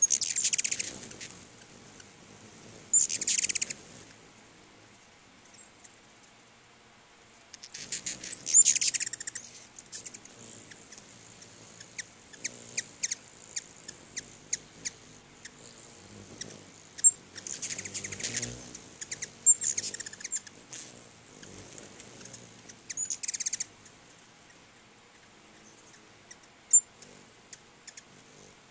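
Ruby-throated hummingbirds chattering in about five short bursts of rapid, high chips, with scattered single chips between: the squabbling chatter of rivals chasing each other at a crowded feeder.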